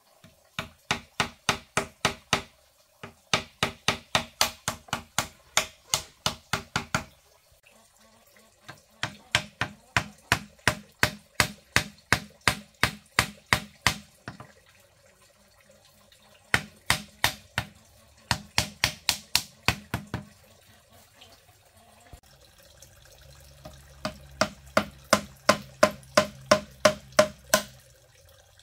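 A hammer striking split-bamboo slats, nailing them onto a bamboo frame: quick runs of sharp knocks, about four a second, broken by short pauses.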